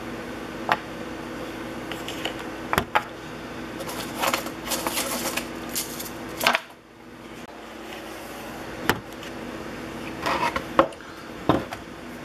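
Irregular clicks, knocks and clatter of metal hand-plane parts and tools being handled on a workbench, with a quicker run of rattling about four to five seconds in, over a steady low hum.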